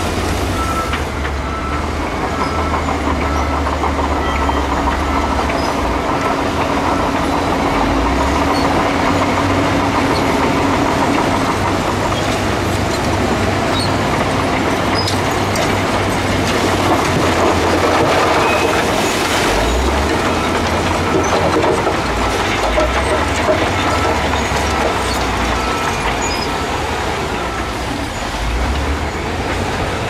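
Heavy earthmoving machinery at work: diesel engines running steadily with the clanking and squealing of steel tracks.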